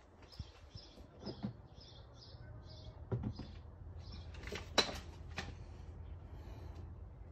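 A small bird chirping, short calls repeated a few times a second, with a few sharp clicks and knocks of parts being handled, the loudest about five seconds in, over a faint low hum.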